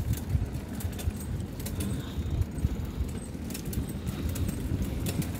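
Bicycles rolling over a wooden plank boardwalk: a steady low rumble from the tyres on the boards, with light rattling clicks from the bike.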